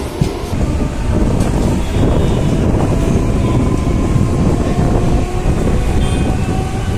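Mumbai suburban local electric train running, heard on board: a loud, steady rumble and rattle of the wheels on the track, growing louder about a second in.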